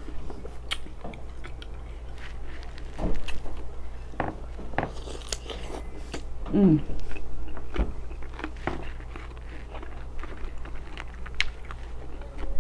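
Close-miked eating: crunching and chewing on a sauce-dipped cucumber spear, with irregular wet mouth clicks and smacks. A brief hummed "mm" comes about six and a half seconds in. A steady low hum runs underneath.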